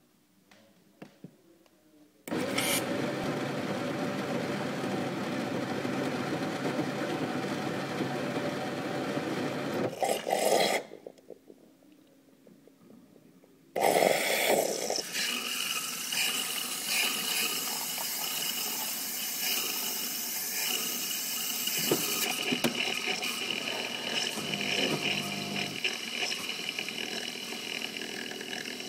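WMF fully automatic coffee machine at work: a few clicks, then a steady motor whirr for about eight seconds, a pause of about three seconds, then a louder hissing run with a thin whine in it.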